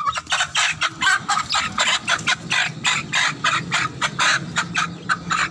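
A chicken squawking in a rapid run of loud calls, about four or five a second, as it is held by hand: the alarm calls of a bird being handled.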